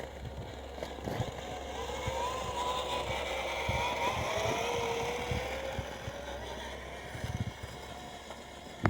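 Electric drive motor and gearbox of an Axial SCX10-based 6x6 RC scale truck whining as it crawls, the pitch wavering up and down with the throttle. Scattered small knocks and clicks accompany it.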